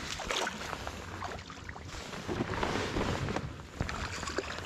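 Water splashing and lapping beside a kayak, with wind buffeting the microphone.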